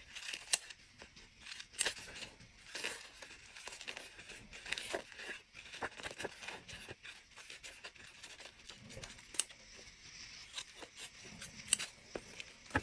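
Small metal scissors snipping through folded paper in a string of short, faint, crisp cuts at an uneven pace, with light paper rustling between the snips as small crescent-shaped notches are cut.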